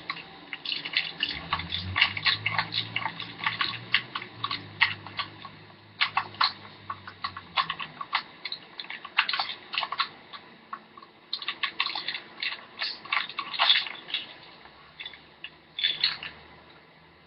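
Irregular clicks, taps and scrapes of a screwdriver working the stock screw and the parts of a Crosman Pumpmaster 760 air gun as the stock is taken off. A faint low hum runs under the first half and stops about halfway through.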